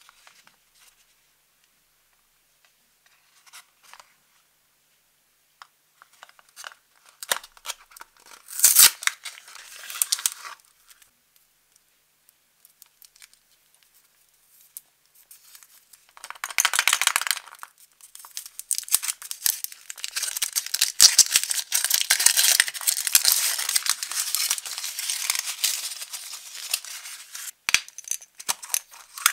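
A Furuta Choco Egg's cardboard box is torn open in short rips about a third of the way in. In the second half its foil wrapper crinkles steadily as it is peeled off the chocolate egg.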